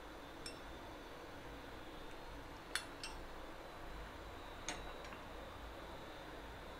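A few light clinks and taps of a spoon and glass bowl against a glass tumbler as crushed mint is spooned in, about five faint ticks over low room hiss, the sharpest a little under three seconds in.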